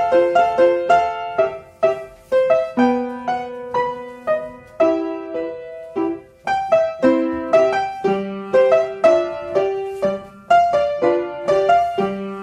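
Piano playing a rhythmic ballet-class accompaniment with crisply struck notes, several a second, for a barre exercise.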